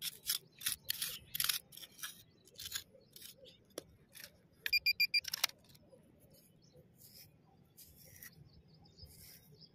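A hand tool scraping and digging in dry, gritty soil in quick strokes, then a short burst of rapid, high electronic beeping about five seconds in; after that only a few faint scrapes.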